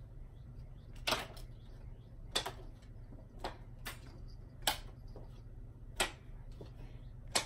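Playing cards thrown one after another, each throw giving a short, sharp snap; about seven in all, roughly one a second.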